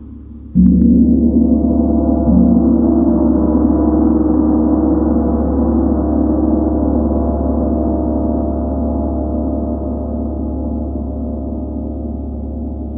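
Large Tibetan gong struck with a mallet about half a second in and again about two seconds in, then a long, deep ringing that slowly fades.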